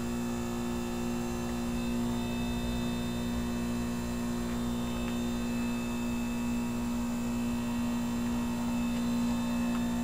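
1988 Heil 2-ton heat pump outdoor unit humming steadily during its defrost cycle: a low, even hum from the running compressor.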